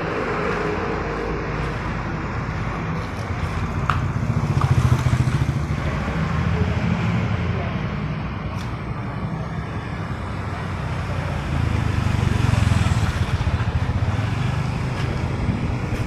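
An engine runs steadily. It grows louder twice, about four seconds in and again near twelve seconds.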